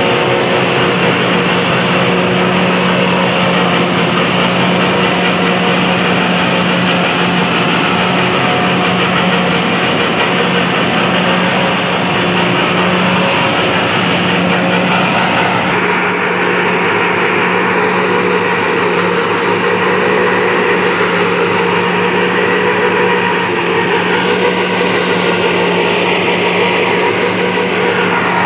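A tractor and a tractor-drawn forage harvester running steadily at working speed while chopping grass and blowing it into a wagon. The sound is a loud, even drone with a constant low hum.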